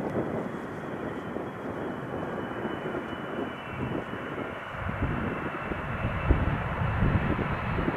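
Boeing 777-300ER's General Electric GE90 jet engines at approach power as the airliner flares to land, a steady rushing noise with a faint high whine. A heavier low rumble builds from about halfway through as the aircraft comes closer.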